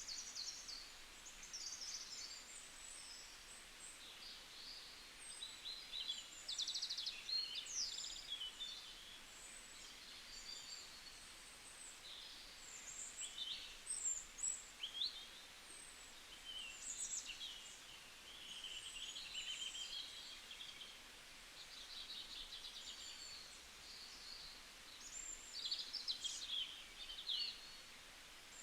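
Forest ambience: several songbirds chirping and trilling, calls overlapping and following one another throughout, over a faint steady hiss.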